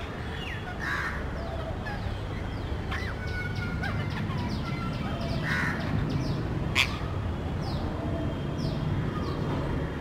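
Birds calling: many short chirps and whistled glides, with two harsher calls, one about a second in and one just past halfway, over a low steady hum. A single sharp click comes about two-thirds of the way through.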